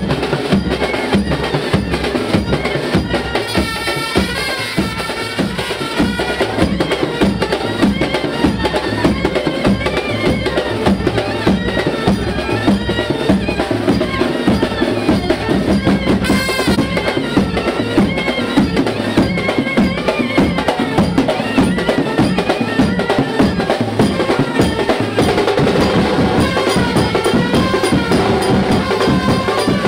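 Music with a steady, driving drum and percussion beat, with a melody above it.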